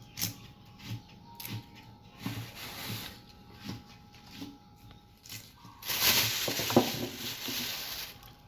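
Cooking at a hot pan: a run of light knocks, then about six seconds in a loud sizzle of food in hot oil that lasts about two seconds.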